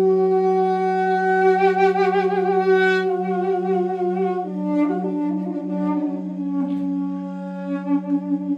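Two Armenian duduks: one holds a steady low drone (the dam) while the other plays a slow, ornamented melody with vibrato above it, stepping down in pitch about halfway through.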